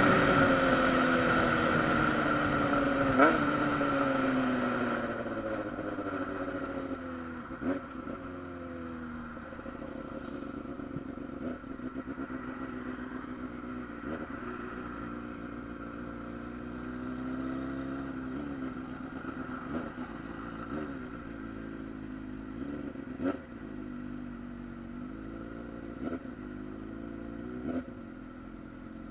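Honda Hornet's inline-four engine, its revs falling away steadily over the first few seconds as the bike rolls off the throttle. It then runs quieter at low revs with small rises and dips, and a few short clicks.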